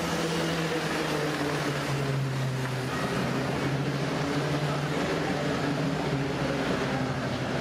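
Vehicle running in the street: a steady engine hum that drops slightly in pitch about two seconds in, over general traffic noise.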